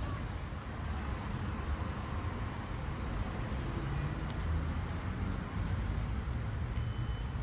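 Steady low rumble of city road traffic, cars and buses running along the avenue.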